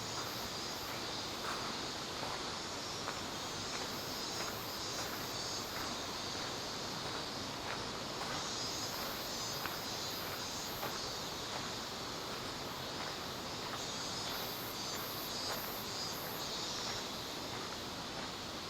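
Cicadas buzzing in repeated high pulses that swell and fade over a steady background hiss, with a few faint footsteps.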